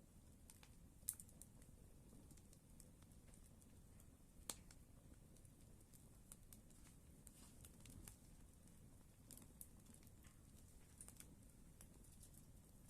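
Campfire crackling faintly: scattered small crackles and ticks, with two sharper pops about a second in and about four and a half seconds in.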